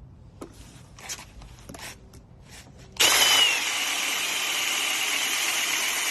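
A few light handling clicks, then about halfway through a cordless power drill starts up and runs at a steady speed, a loud whirring with a high whine over it, a little louder for the first moment after it starts.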